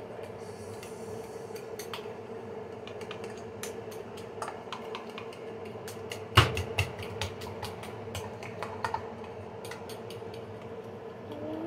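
Small scattered clicks and taps of kitchen containers and utensils being handled, with one sharp knock about six seconds in, over a steady low hum.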